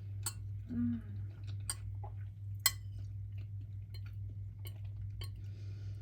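A fork clicking against a plate about five times, one click much louder than the rest, over a steady low hum, with a brief vocal sound about a second in.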